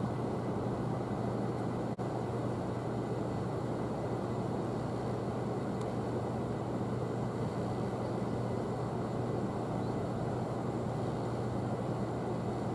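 Steady low drone of the bulk carrier Cape Aria's diesel engine as the ship passes, a constant low hum over an even rumble.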